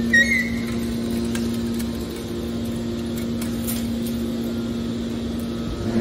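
Hydraulic scrap metal baler's power unit running with a steady hum, and a brief high squeak right at the start.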